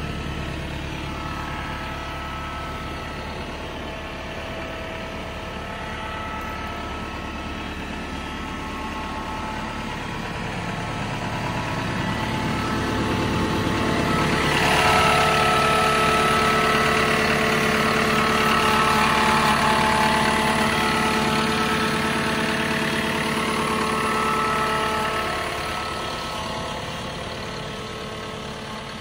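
CAT M315F wheeled excavator's diesel engine idling steadily. About halfway through, as the engine compartment panel is opened, it gets louder and fuller for about ten seconds, then eases off near the end.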